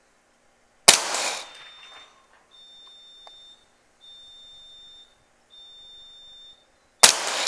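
Two rifle shots, one about a second in and another near the end, each a sharp crack that dies away over about a second. Between them come three steady high electronic beeps, each about a second long, evenly spaced.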